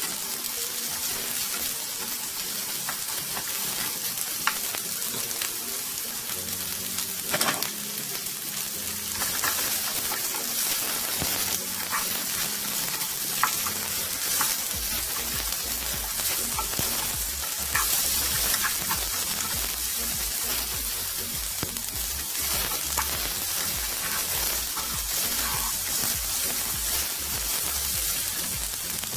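Chunks of onion and bell pepper sizzling in oil in a non-stick frying pan, stirred with a wooden spatula that scrapes and taps the pan now and then. The sizzle is a steady hiss.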